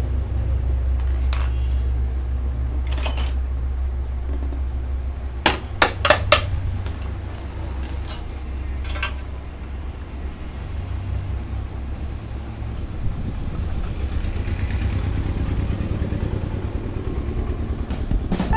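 Mishuk three-wheeler running with a steady low rumble, broken by a few sharp metallic clanks, the loudest a quick burst of four about six seconds in.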